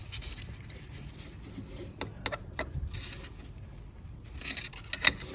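A few sharp clicks and light scraping from hand work on the steering box's parts and tools: three clicks about two seconds in, then a scrape and a louder click near the end.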